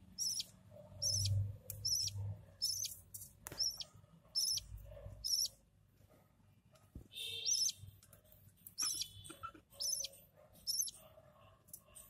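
Budgerigar chicks giving high-pitched begging chirps while a parent feeds them. The chirps are short and repeat about once a second, with a brief pause around the middle.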